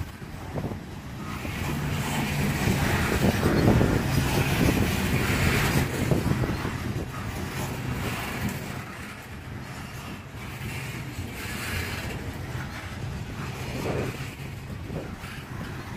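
Freight train of coal gondolas rolling past: a steady rumble and clatter of steel wheels on the rails, loudest a few seconds in and easing a little after.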